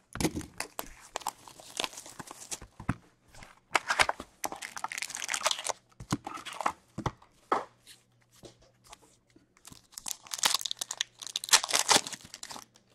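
Rustling and crinkling of a cardboard hockey-card box being opened and its packs handled, then a card pack's wrapper torn open, the loudest tearing near the end.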